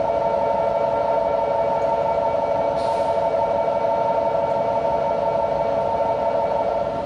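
Electronic departure warning tone on a Shinkansen platform: a steady chord of several held notes that starts abruptly and sounds without a break for about seven seconds before stopping, signalling that the train is about to depart.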